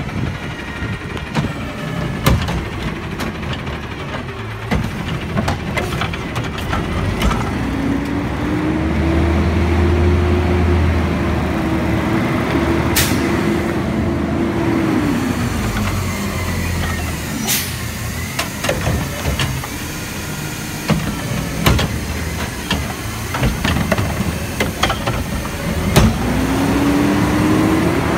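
Automated side-loader garbage truck working a cart: its diesel engine runs and twice revs up, holding high before dropping back, with sharp knocks and bangs from the lifting arm and cart.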